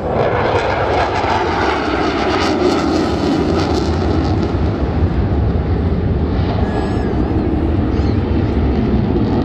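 Jet noise from a HAL Tejas fighter's single General Electric F404 turbofan as it flies overhead: a continuous rushing sound, crackly in the first half, with a deep rumble that grows stronger in the second half.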